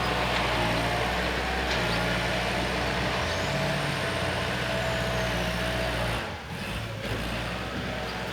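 Earthmoving machine's engine running steadily under work, with a faint high whine over the drone; it eases off briefly about six seconds in, then picks up again.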